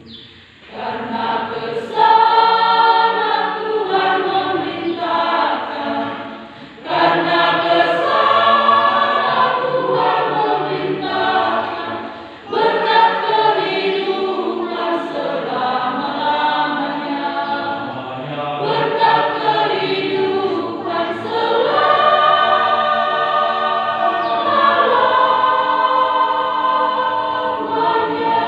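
A church choir of young women singing together in sustained phrases, with short breaks between phrases about six and twelve seconds in.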